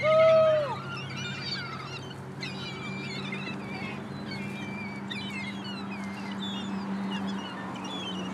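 A flock of seagulls calling: many short, high squeals overlap through the whole stretch, opened by one loud drawn-out call that falls in pitch at its end. A steady low hum runs underneath.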